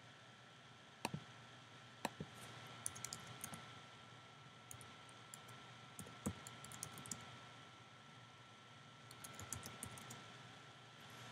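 Faint computer mouse clicks and keyboard typing: scattered single clicks early on, then short runs of keystrokes around six to seven and nine to ten seconds in as a web address is typed. A faint steady tone sits underneath.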